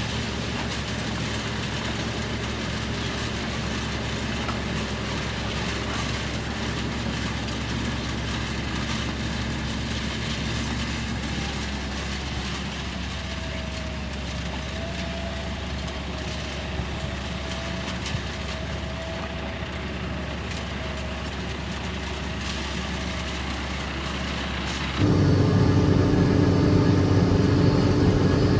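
Farm tractor engine running steadily while working the hay field. About 25 seconds in, the sound cuts abruptly to a louder, deeper engine sound heard from closer.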